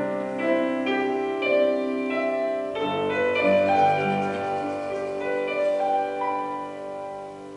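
Piano playing a slow instrumental passage of held notes and chords, with no singing, fading out near the end.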